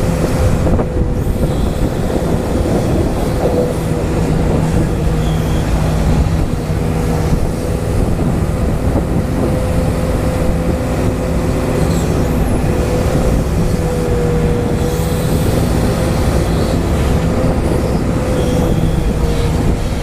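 Huina 580 RC hydraulic excavator running as it digs, its hydraulic pump giving a steady whine over a dense low hum that shifts slightly in pitch with the load.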